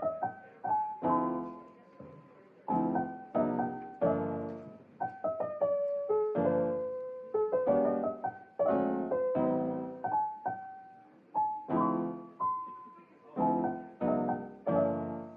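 Background piano music: chords struck and left to ring out, with single melody notes between them.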